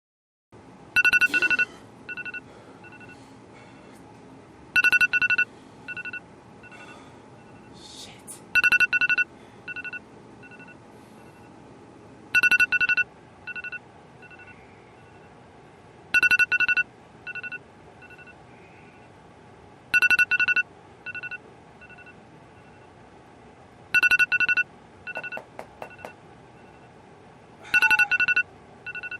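Stevenson D 3150S24 signalling device sounding a repeating pattern: a loud, buzzy tone burst about every four seconds, each followed by three or four short, fainter beeps at the same pitch.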